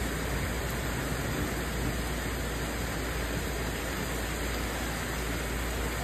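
Steady rain falling in a thunderstorm: an even, constant hiss with a low rumble beneath it.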